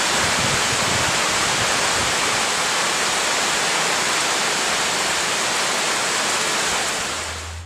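Recording of heavy rain: a steady, even hiss of falling rain that fades out near the end.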